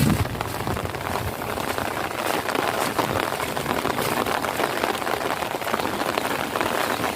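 Steady rain: a dense, even patter of many small drops.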